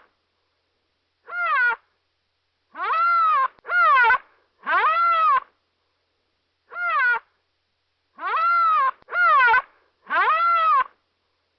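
An animal calling eight times. Each call is a drawn-out cry that rises and then falls in pitch, and the calls come singly or in quick runs of two or three with short pauses between.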